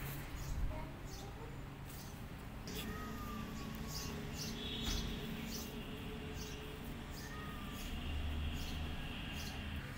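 Outdoor ambience of birds chirping: short high chirps about once a second, with a few thin whistled notes, over a low steady hum.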